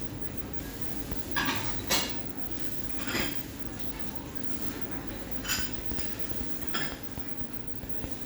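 Dishes and cutlery clinking and clattering in a handful of separate knocks, over a steady low hum.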